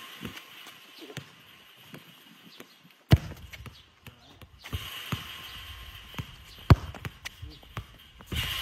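Two sharp kicks of a football, about three and a half seconds apart, each chipping the ball toward the goal, with lighter footsteps and taps on the concrete court between them.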